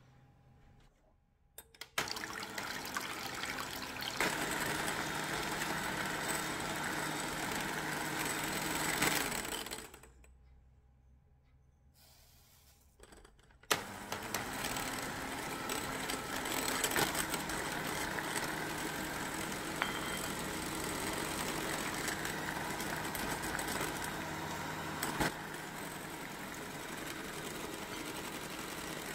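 Electric hand mixer with twin beaters whipping egg whites to a foam in a glass bowl. It runs for several seconds, stops for a few, then starts again with a click and runs on, a little quieter near the end.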